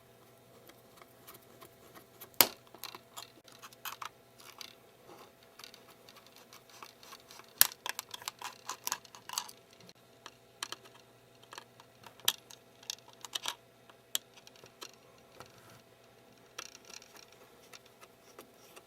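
Small clicks and taps of a precision screwdriver and small tools against the metal frame of an iPhone 3GS as its internal screws are backed out and lifted away. The clicks are scattered, with short runs of rapid ticks and two sharper clicks about two and a half and seven and a half seconds in.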